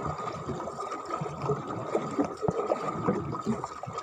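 Water lapping and trickling against the hull of a small wooden boat, an irregular splashy wash.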